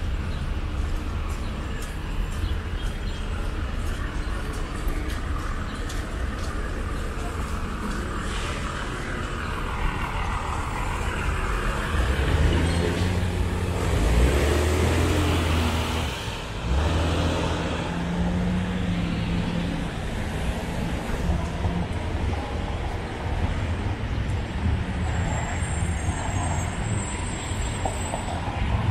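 City street traffic: a steady rumble of cars passing, with a heavy vehicle's engine running loudest about halfway through.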